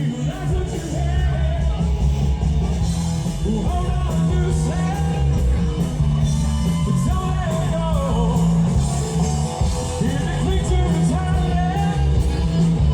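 Rock band playing loud through a PA: a singer over electric guitar, heavy bass and a steady drum beat.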